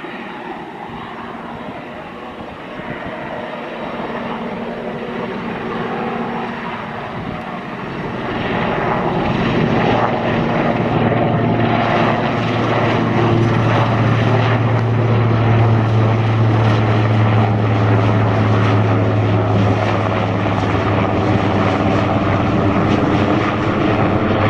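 Aircraft engines running, growing louder about eight seconds in and then holding a steady low hum with higher tones over it.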